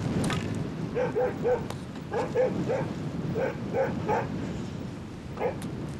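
Dog barking at a polar bear close by, in quick runs of about three barks, with one last bark near the end.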